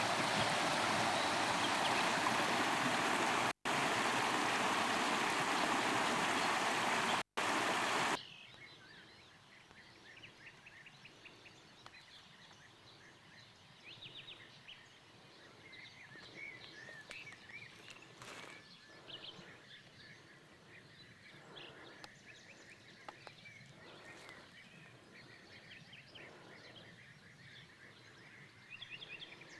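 Loud, steady rush of storm water, heavy rain and runoff, with two very brief dropouts. It cuts off abruptly about eight seconds in, leaving a quiet background with birds chirping.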